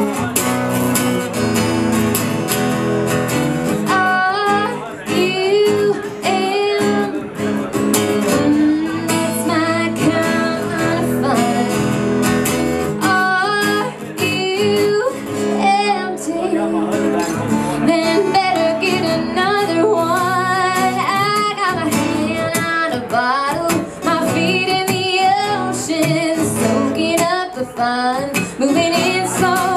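Woman singing a country song live over strummed acoustic guitars. The guitars play alone at first, and the singing comes in about four seconds in.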